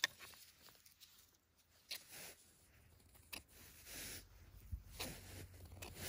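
Faint rustling, with a few short scratches and snaps, as hands handle a clump of yellowfoot mushrooms and the moss around them.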